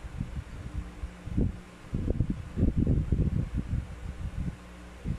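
A circuit board being pushed and shifted into a sheet-metal monitor chassis by hand, giving a run of low knocks and scrapes, thickest in the middle, over a faint steady low hum. The board is a tight fit.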